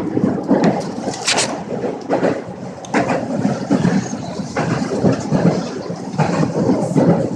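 Train running, an uneven rumble with a few sharper clatters, one loudest about a second in.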